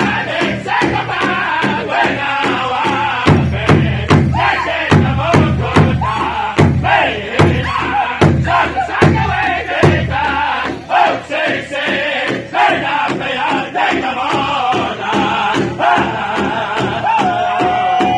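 Powwow drum group: several men singing together in full voice while striking one large shared hide drum with drumsticks in a steady, even beat.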